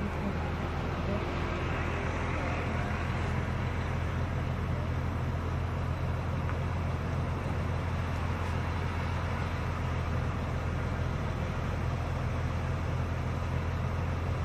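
A motor running at a constant speed: a steady low hum that does not change pitch, with a rushing noise over it.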